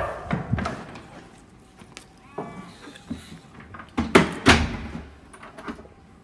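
Hotel room door being opened and let swing shut, with two heavy clunks about four seconds in as it closes and latches.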